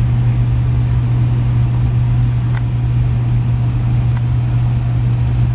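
Steady drone of engine and airflow noise inside an airliner cabin during the approach to landing, with a strong low hum. Two faint clicks break it briefly about two and a half and four seconds in.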